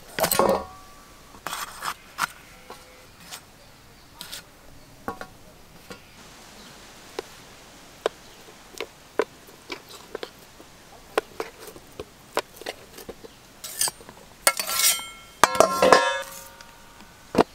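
Knife cutting through a bell pepper and a block of paneer on a steel plate: a string of short taps and knocks. Near the end comes a cluster of louder, ringing metal clinks of steel plates.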